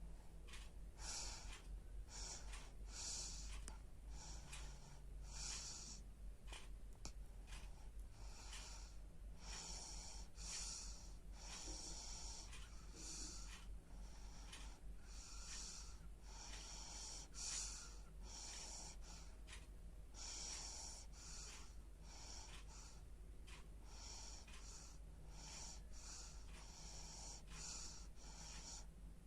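A sleeping baby snoring lightly: faint, quick, noisy breaths repeating about once a second.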